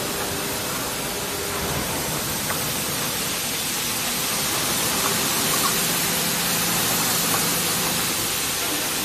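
Automatic carpet washing machine running: a steady hiss like spraying water, with a faint low hum underneath.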